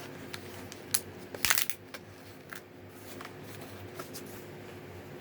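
Plastic retail packaging of a folding knife being handled: scattered clicks and crinkles, with a louder crackle about a second and a half in.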